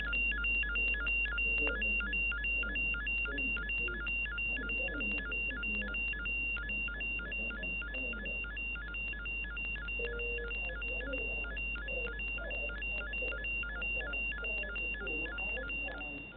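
Electronic beeping: a rapid, evenly repeating alternating two-tone beep over a steady high tone and a low electrical hum, in the manner of a sci-fi sound effect. It cuts off abruptly at the end.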